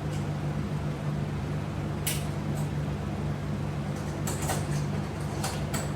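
A few sharp clicks and light rattles of resistance-band strap clips and buckles being handled and fastened: one about two seconds in, then a quick cluster in the last two seconds. A steady low hum runs underneath.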